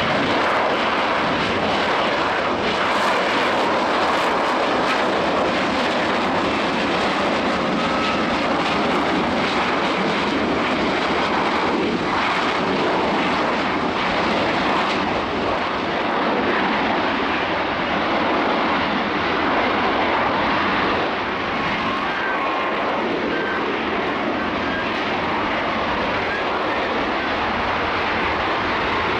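A jump jet's engine running at high power in a hover: a loud, steady rushing jet noise that holds an even level throughout.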